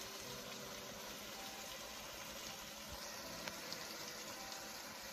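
Faint, steady simmering sizzle of vegetables (asparagus and zucchini noodles) cooking in tomato and garlic juices in a frying pan, with a couple of light clicks about three and a half seconds in.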